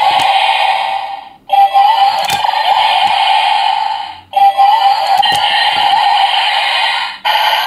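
Bandai DX R/B Gyro toy playing its electronic transformation sound effects and music through its small speaker as its lever is pulled three times for the Ultraman Rosso transformation. The audio breaks off and restarts with a rising sweep about a second and a half in, again about halfway, and again near the end, with a few plastic clicks from the lever and spinning rotor.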